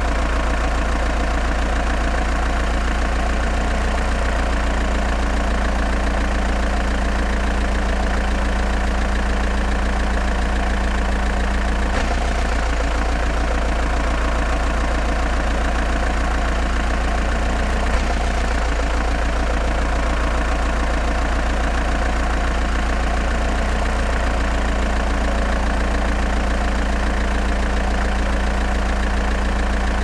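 Engine idling sound effect, steady and unchanging, deepest and loudest in its low drone.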